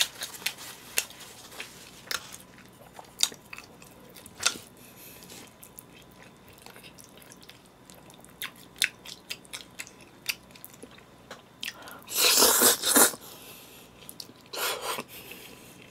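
A person eating close to the microphone: chewing with sharp, separate wet mouth clicks, then a loud slurp of spaghetti about twelve seconds in and a shorter slurp near the end.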